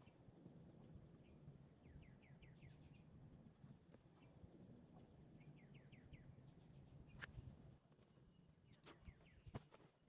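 Faint outdoor ambience: a bird calling in short runs of quick falling chirps, over a low rumble and a steady high whine that stops about eight seconds in. A few sharp clicks come near the end.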